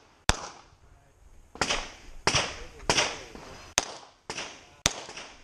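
Pistol fired about seven times in quick, uneven succession, each shot a sharp crack with a short echo.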